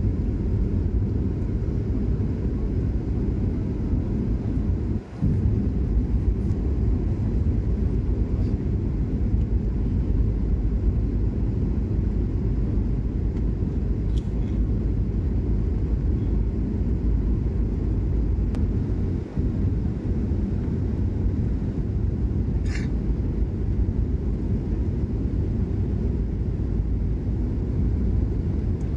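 Steady low rumble of jet engines and rushing air heard inside the cabin of a Boeing 737 airliner descending on approach with its flaps extended. The sound dips briefly twice: about five seconds in and again near the two-thirds mark.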